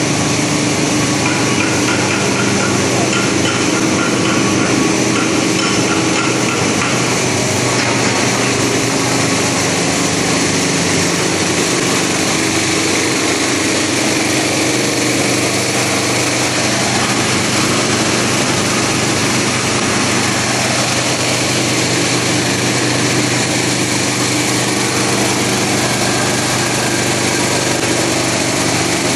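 Snack-pellet processing machinery running: a steady, loud mechanical din with a continuous hum, unchanged throughout.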